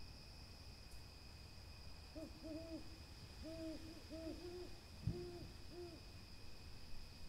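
An owl hooting: a run of about eight short, low hoots, some in close pairs, over a few seconds. A soft thump comes about two-thirds of the way through, and a faint steady high whine runs underneath.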